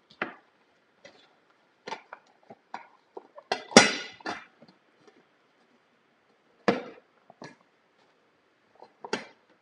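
Plates and a metal pan knocking and clinking as they are handled on a countertop. The loudest knock rings briefly about four seconds in, with further knocks around seven and nine seconds.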